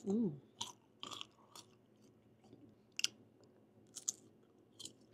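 Close-miked biting and chewing of mango slices, with a handful of sharp, separate crunches. A short hummed 'mm' of the voice comes at the very start.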